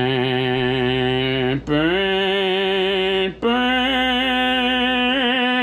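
A man singing three long, drawn-out notes, each one higher in pitch than the last, with short breaks between them.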